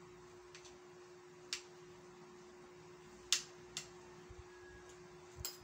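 A metal spoon clinking sharply on a ceramic plate about five times while rice is scooped up, the loudest clink a little over three seconds in. A faint steady hum runs underneath.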